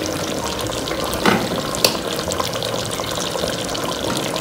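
Chicken curry simmering with a steady hiss in a nonstick pot while parboiled rice is spooned on top with a serving spoon. Two sharp knocks of the spoon, a little over a second in and again about half a second later.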